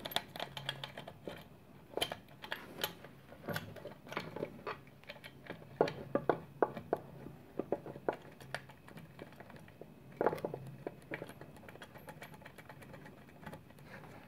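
Scattered light metallic clicks and taps of machine screws and metal parts being handled and fitted as a milling machine power feed unit is bolted onto its mounting plate, with a louder clatter about ten seconds in.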